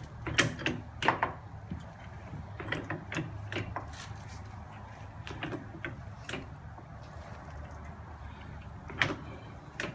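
Hydraulic floor jack being pumped to raise the car, heard as scattered clicks and knocks over a steady low hum.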